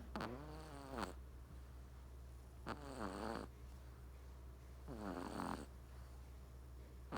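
Three-month-old Persian kitten snoring: three snores about two seconds apart, each under a second long, its pitch dipping and then rising again.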